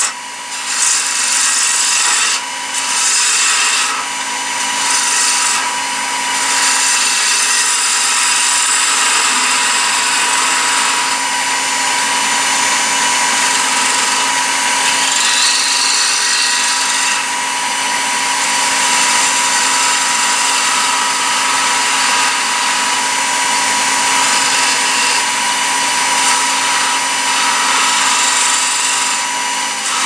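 Wood lathe running with a steady hum while a hand-held gouge cuts a spinning wooden spindle, a rough shaving hiss. The cutting hiss breaks off briefly a few times in the first several seconds as the tool is lifted, then runs on.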